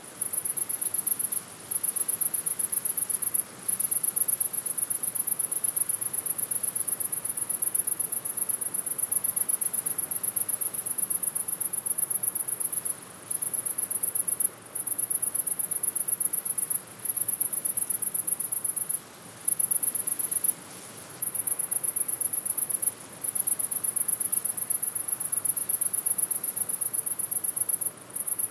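Cricket chirping in long, very high-pitched trills of rapid pulses, broken by short gaps every few seconds.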